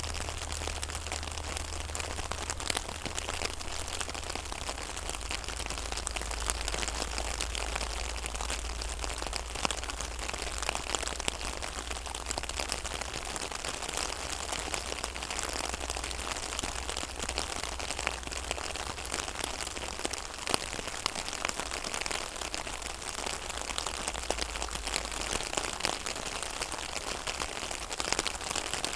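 Rain falling on a pond's water surface: a steady, dense patter of many small drops, with a steady low rumble underneath.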